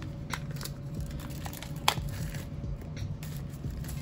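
Cardboard AirPods box being handled and its plastic shrink-wrap peeled off: scattered clicks and taps of long acrylic nails on the box with crinkling of the film, and one sharp click about two seconds in.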